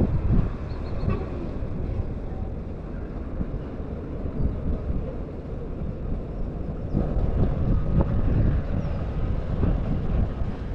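Wind buffeting the microphone in gusts, a low rumble, with the faint drone of a distant motor underneath.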